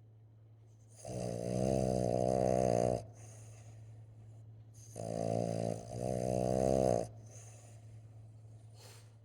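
Sleeping Boston terrier snoring: two long snores about four seconds apart, the second breaking briefly in the middle.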